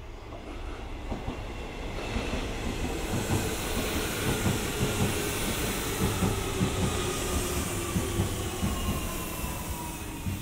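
Hanshin Jet Car 'Jet Silver' electric train coming in: a motor whine that falls slowly in pitch, over rumble and the clack of wheels on the rails.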